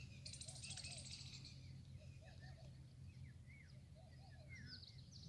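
Faint birdsong from several birds: short chirps and quick whistled slurs, a buzzy trill about a second in, and a low three-note call repeated three times, over a steady low hum.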